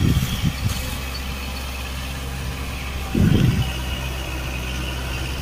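Kubota MU4501 tractor's four-cylinder diesel engine running steadily under load as it pulls a rotavator through flooded mud, with two louder low swells, one near the start and one about three seconds in.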